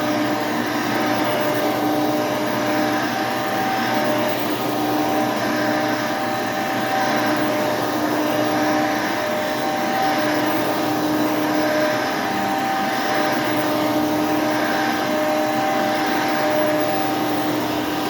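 Hoover Elite II upright vacuum cleaner, with a 5.5 amp motor and a 7-blade fan, running steadily with a little bit of a whine.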